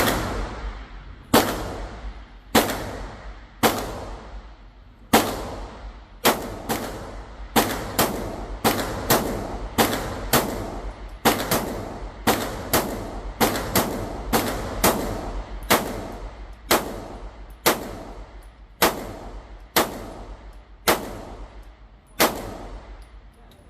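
A firearm fired at a range in a long string of single shots, about 27 in all. The shots come about one a second at first, then speed up to about two a second in the middle stretch before slowing again. Each shot is a sharp crack with a short echoing tail.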